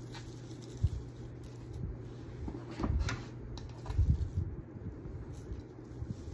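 Soft knocks and rustles of craft materials being handled on a tabletop, loudest about 1, 3 and 4 seconds in, over a steady low hum.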